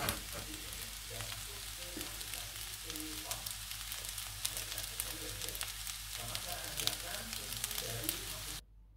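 Pearl couscous and vegetables frying in a stainless steel pan on the stove, with a steady sizzle full of small crackles. The sound cuts off abruptly near the end.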